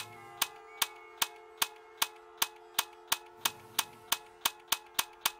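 A regular series of sharp clicks, about two and a half a second, quickening near the end, over a steady held tone.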